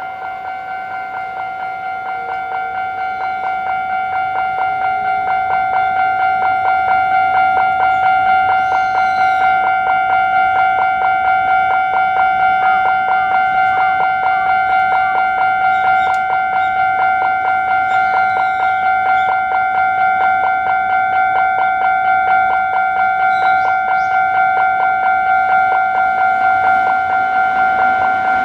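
Japanese railway level-crossing warning bell ringing its fast, even, repeating 'kan-kan' clang. It grows louder over the first several seconds, then holds steady.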